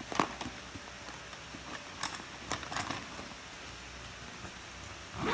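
A few scattered light clicks and taps of handling noise: one shortly after the start, a small cluster around the middle and a louder one at the end, over a faint steady hiss.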